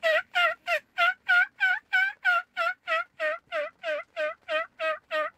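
Turkey call worked by a hunter, sounding a long, even series of hen yelps at about three a second, meant to draw in a tom.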